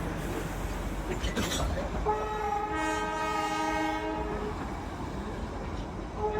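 Darjeeling Himalayan Railway toy train running with a steady low rumble, then sounding its horn about two seconds in: a two-note blast of about two and a half seconds.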